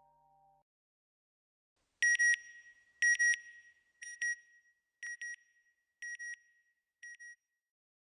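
Electronic beeping from a logo sound effect: a pair of short, high beeps repeated once a second, six times, each pair fainter than the last. Before it, the last of soft background music fades out.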